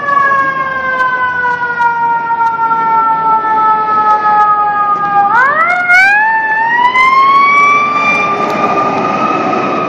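Fire engine siren winding slowly down in a falling wail for about five seconds, then rising sharply and climbing back to a high, steady pitch.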